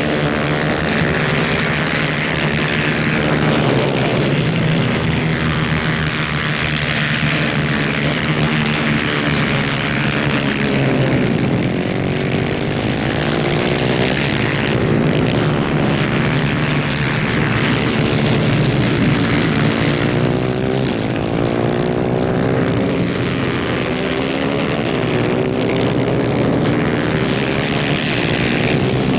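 Several 250cc two-stroke superkart engines racing at high revs, their pitches overlapping and repeatedly rising and falling as they accelerate and lift off.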